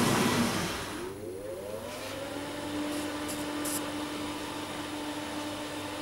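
Fan motor of an AEG heat pump tumble dryer, run in test mode, starting up and running normally. A rushing noise fades within the first second. The fan then spins up with a rising whine about a second in and settles by about two and a half seconds into a steady hum.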